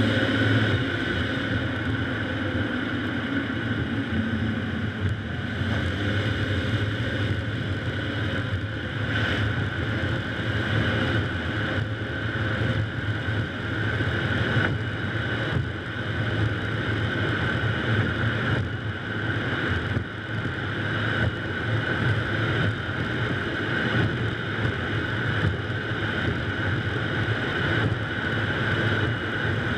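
Car driving on wet pavement: steady tyre and road noise with wind rushing over a low, outside-mounted camera.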